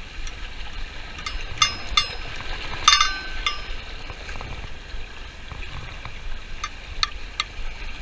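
Waves washing against shoreline rocks under light wind, with scattered sharp metallic clinks from fishing tackle being handled. The clinks come in a cluster around the first few seconds and a few more near the end.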